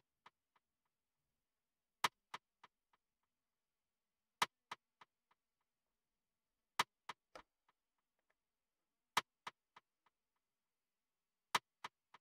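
A single snare drum sample hitting five times, about every two and a half seconds. Each hit is followed by three or four quieter echoes about a third of a second apart, fading away. The echoes come from FL Studio's Fruity Delay on a parallel send, with the delay's dry level at zero so only the echoes add to the snare.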